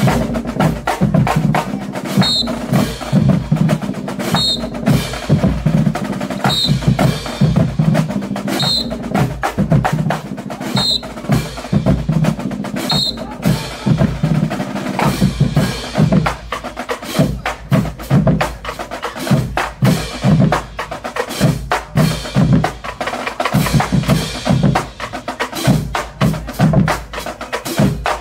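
Marching band drumline playing a cadence: snare drums rattling off fast strokes over deep bass drum hits and cymbal crashes. A short high note repeats about every two seconds through the first half.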